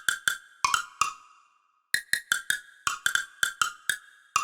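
Wood block preset of FL Studio's Flex synth playing a quick run of short, pitched knocks at a few different pitches, about four or five a second, with a brief pause about a second and a half in.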